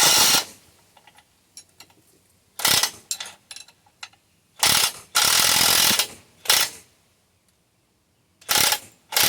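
Hand ratchet wrench clicking in several bursts of quick clicks, the longest about a second and a half, with short pauses between, as a tool is turned along a bolt to chase its damaged threads.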